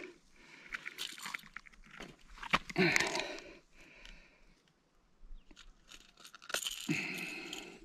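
Close rustling and crunching as a caught largemouth bass is held and unhooked by hand, coming in three louder bouts.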